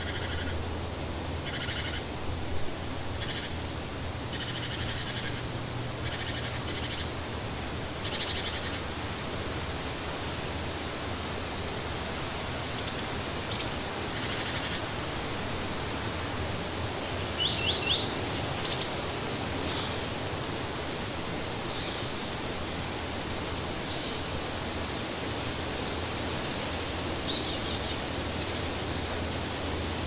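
Forest ambience: a steady rushing hiss with a low hum underneath, and birds giving short, scattered chirps and calls throughout.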